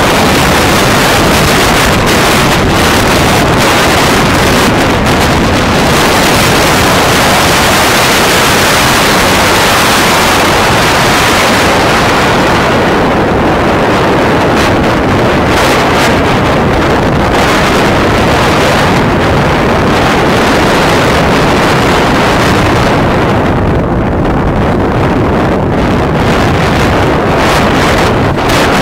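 Heavy wind rushing over the microphone of a motorcycle riding at speed, with the Bajaj Pulsar 180's single-cylinder engine running underneath. The hiss thins out briefly twice, once in the middle and once near the end.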